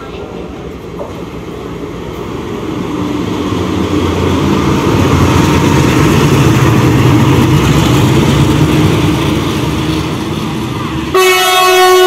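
WDG4G diesel-electric locomotive approaching and passing close by, its engine and running gear growing steadily louder over the first few seconds. About a second before the end the sound switches abruptly to the locomotive's horn blowing, a loud steady chord of several tones.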